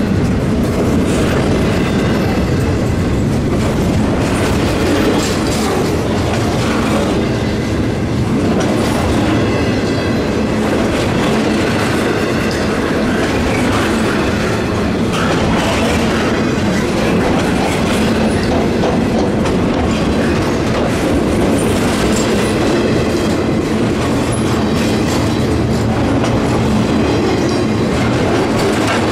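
Cars of a CSX intermodal freight train rolling past steadily, a continuous loud rumble of wheels on rail.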